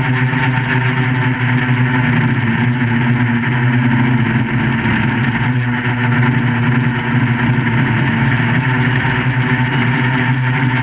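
QAV400 quadcopter's electric motors and propellers running at a steady pitch during flight, with several held tones.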